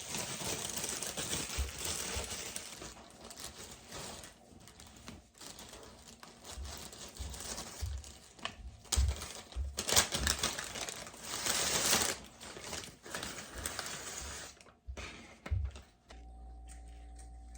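Irregular tapping, clicking and rustling of desk study work, such as keys and paper being handled. It stops about sixteen seconds in, leaving a steady low hum.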